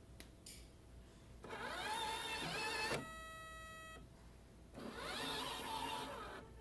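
Rotimatic roti-making machine's motor whirring up twice, rising in pitch each time for about a second and a half, with a steady one-second electronic beep between the two runs. The machine will not start and keeps showing an error.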